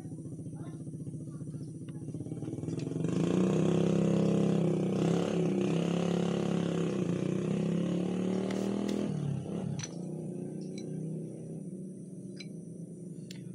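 The engine of another motorcycle running nearby. It grows louder about three seconds in, stays loud for several seconds, then drops back about nine seconds in. A few light metallic clicks come from parts being handled.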